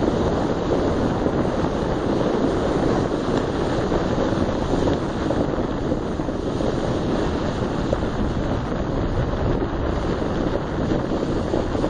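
Steady rushing wind buffeting the microphone of a moving vehicle, mixed with its road noise, without letup.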